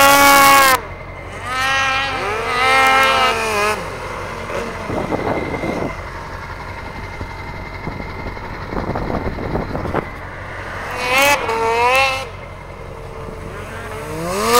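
Snowmobile engines revving up and down in several bursts as the sleds run through the ditch snow, the last rev climbing sharply near the end. Between the revs a quieter steady rushing noise.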